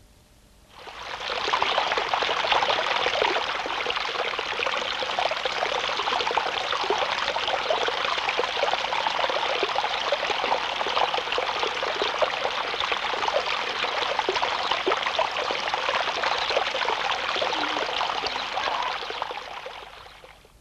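Small stream splashing and pouring over stones in a steady rush. The sound fades in about a second in and fades out near the end.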